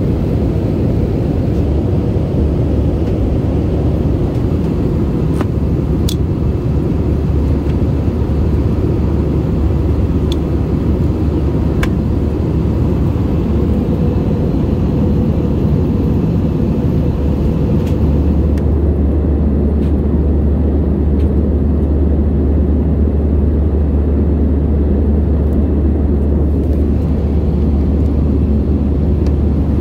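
Airbus A320 cabin noise: a steady low rumble of engines and rushing air. A few faint clicks sound over it. The low rumble grows heavier about two thirds of the way through.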